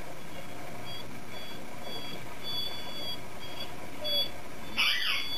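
Standard poodle puppy whining: a run of thin, high whimpers about twice a second, then a louder, longer whine near the end. The puppy has just been neutered and is still groggy, and the whining is the crying the owner hears as sad.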